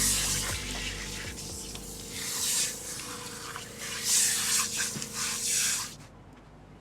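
Sea waves washing in and breaking in three swells of hiss, over faint background music; the sound cuts off abruptly about six seconds in.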